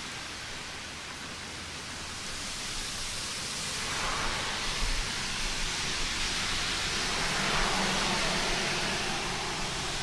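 Steady rain hiss that swells and grows fuller about four seconds in.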